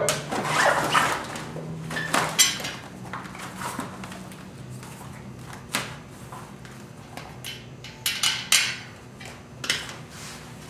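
A bicycle tire being changed by hand at speed with a QuikStik tire lever: an irregular run of clicks, knocks and scrapes as the lever and tire bead work against the rim and the wheel is handled.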